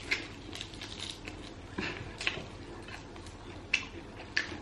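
Biting into and chewing a dumpling wrapped in a sheet of dried seaweed, with scattered short crisp crunches and mouth clicks.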